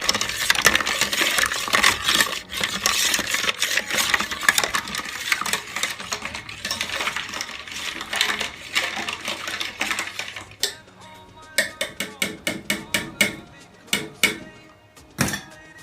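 Ice cubes clattering and clinking in a vessel of yogurt lassi as it is stirred, in a fast dense rattle for about ten seconds, then slower separate clinks.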